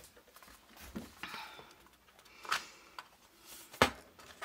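Faber-Castell Polychromos metal pencil tin being handled and opened: a few soft taps and rustles, then a sharp click a little before four seconds in as the hinged lid comes open.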